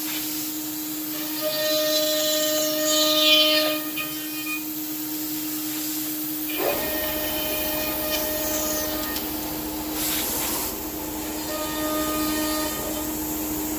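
Home-built CNC router spindle running steadily as an end mill cuts slots in hardwood form ply, with a hissing air blast clearing the chips and cutting noise that rises and falls. About six and a half seconds in, the steady tone stops and a low pulsing hum starts.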